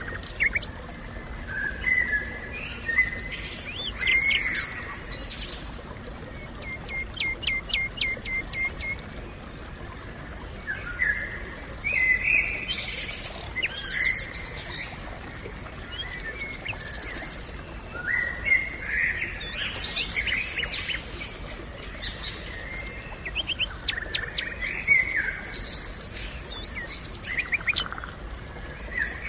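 Forest birdsong: several songbirds singing in overlapping phrases, with a run of quick, evenly repeated notes about seven seconds in, over a steady background hiss.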